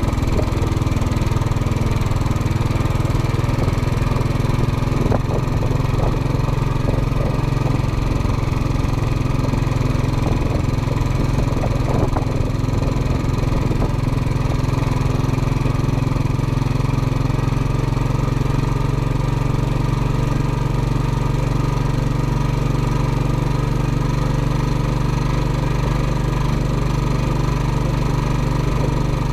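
Royal Enfield Classic 500's single-cylinder four-stroke engine running steadily as the motorcycle is ridden along at road speed.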